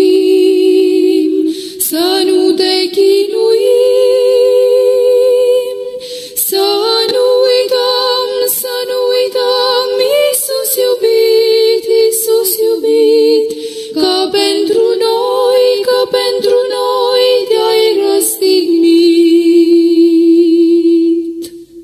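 Voices singing a slow religious hymn, apparently unaccompanied, in long drawn-out notes with vibrato, often two parts in harmony. The phrases break off briefly about 6 and 14 seconds in.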